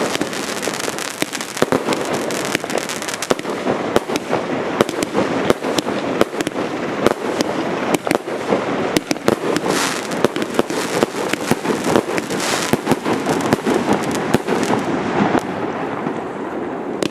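Category 4 display fireworks going off in quick succession: continuous rapid crackling and popping, with frequent louder sharp bangs.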